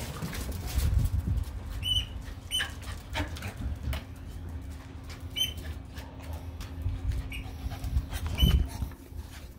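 Dogs at play: scuffling and light knocks, with about five short high-pitched squeaks a second or more apart.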